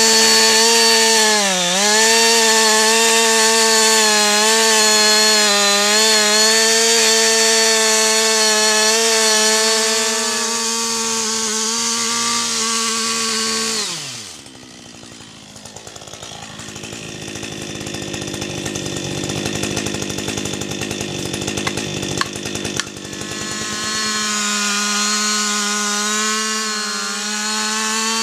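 Two-stroke petrol chainsaw running at high revs with a steady high pitch, dipping briefly about two seconds in. About halfway it drops off and a quieter, noisier stretch follows for about ten seconds, then the saw revs up again and falls away at the end.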